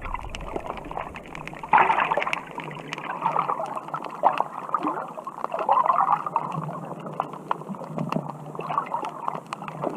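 Water gurgling and sloshing, with scattered short clicks throughout.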